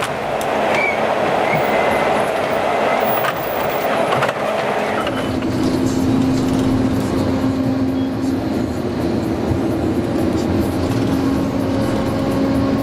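Heavy machinery engine running loudly and steadily, with a steady hum joining about five seconds in.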